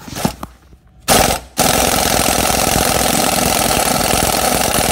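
Impact wrench hammering on the rear axle's pinion nut to break it loose: a short burst about a second in, then a long continuous run.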